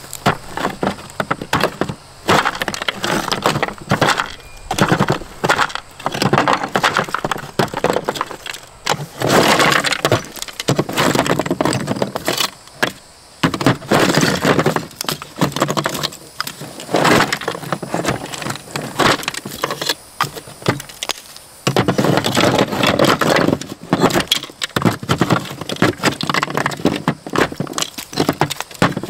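Cured mortar cracking and breaking away from the cells of a plastic shower base as a flat-bladed hand tool pries and scrapes it out, with chunks knocking against the plastic. The scraping and cracking come in spells of rapid strokes with brief pauses.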